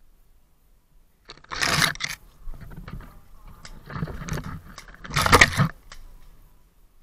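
Scraping and crunching noises close to the microphone, with scattered small clicks. There are two louder bursts, about a second and a half in and again about five seconds in.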